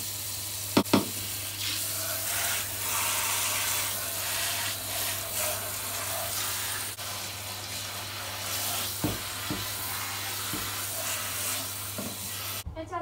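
Handheld shower head spraying water onto a small dog's paws on a bathroom floor, a steady hiss that cuts off suddenly near the end as the water is shut off. A couple of sharp knocks about a second in.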